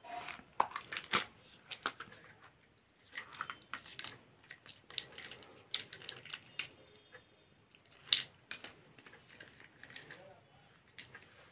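Irregular light clicks and clatters of small hard objects being handled and set down, the sharpest about a second in and again around eight seconds in.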